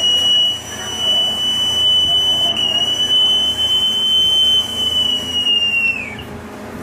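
Boatswain's call piped in one long, steady high note that slides up at its start and falls away as it ends about six seconds in. This is the call that precedes a broadcast order on the ship. A low steady machinery hum runs underneath.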